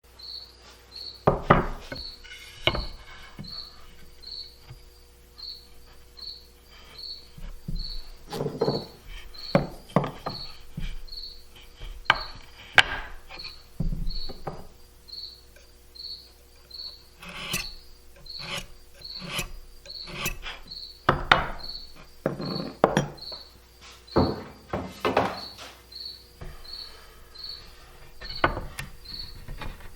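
A cricket chirps steadily in short high chirps a little more than once a second, while irregular knocks and clunks of wooden trim boards being handled and set down come and go, the knocks the loudest sounds.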